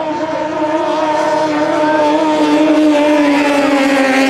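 Modified, straight-piped Toyota 5K four-cylinder engines on longtail racing boats running at high revs at full throttle. The steady, high engine note grows louder as the boats come close and sags a little in pitch.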